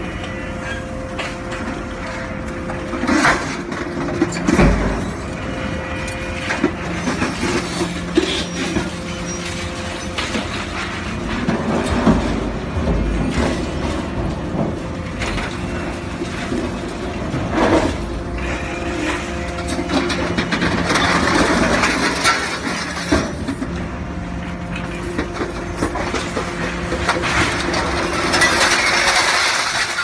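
Hydraulic scrap metal shear and excavator running steadily, with repeated clanks and stretches of crunching as scrap car-body metal is dropped and pushed into the shear's hopper and cut.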